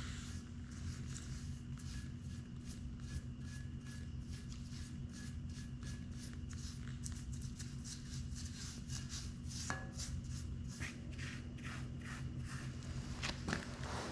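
Chip brush scrubbing wet rust converter onto rusty sheet-metal welder panels: a quick, uneven run of scratchy bristle strokes over a steady low electrical hum.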